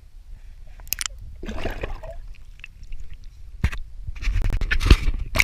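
Water splashing in several short bursts, the longest and loudest near the end, over a low steady rumble of wind on the microphone.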